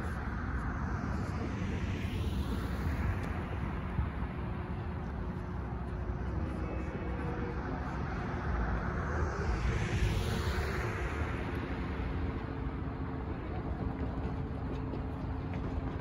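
Cars passing on the road, the tyre and engine noise swelling and fading twice, about two seconds in and again near ten seconds, over a steady low traffic rumble.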